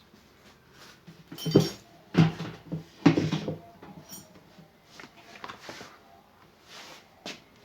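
Hard parts and tools clinking and knocking as they are handled, three loud clatters in the first half, then several lighter knocks.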